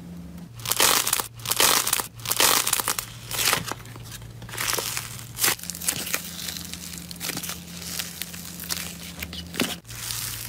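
Foil-wrapped slime ball squeezed in the hands: loud bursts of foil crinkling in the first few seconds, then a denser, quieter crackling and tearing as the pink slime inside is pulled apart.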